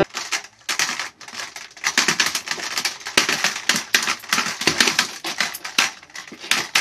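Metal walking frame clattering and knocking on a hard floor as someone shuffles along with it: quick, irregular clicks and scrapes, several a second.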